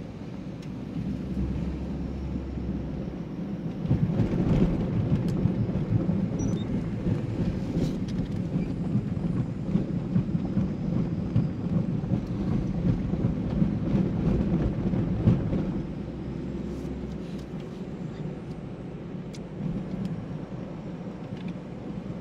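Car driving along a road, heard from inside the cabin: a steady low rumble of engine and tyres. It grows louder and rougher from about four seconds in until about sixteen seconds, then settles back.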